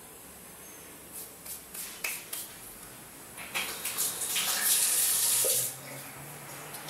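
A few light clicks and knocks, then a kitchen tap running for about two seconds as hands are rinsed under it, cutting off abruptly when it is turned off.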